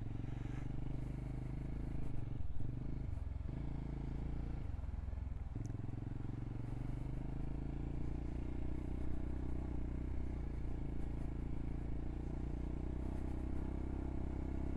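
Motorcycle engine idling steadily, with a brief unsteady patch between about two and five seconds in.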